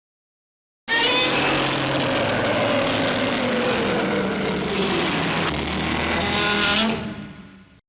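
Godzilla's roar, the 1984 (Heisei-era) monster sound effect: one long, rough roar with a wavering pitch, starting about a second in, lasting about six seconds and fading out near the end.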